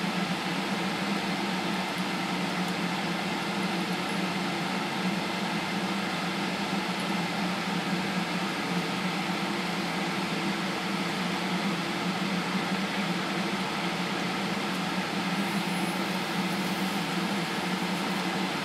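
Spray booth extractor fan running with a steady airy whir and a constant low hum.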